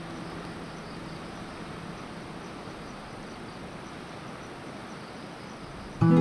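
Steady hiss of surf from waves breaking on the beach, while the last guitar chord of the background music fades out. A new acoustic guitar strum starts right at the end.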